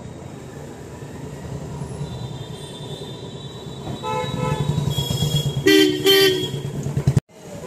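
Vehicle horn honking: a short toot about four seconds in, then two loud blasts around six seconds, over a low steady rumble. The sound cuts off suddenly just after seven seconds.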